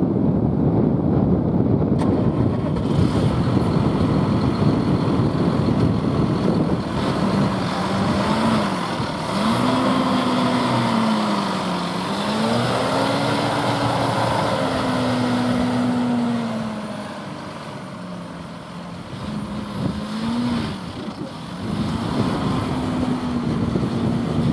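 John Deere tractor's diesel engine running as the tractor moves across a ploughed field, its pitch rising and falling several times as the revs change. Wind rumbles on the microphone for the first several seconds.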